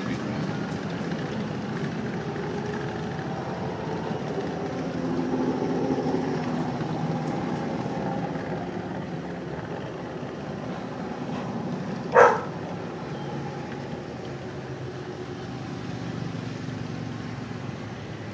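Motorcycles passing one after another on the road, their engines running steadily. The sound swells as the bikes go by and eases off between them. About twelve seconds in, a single short, sharp sound rises above the engines.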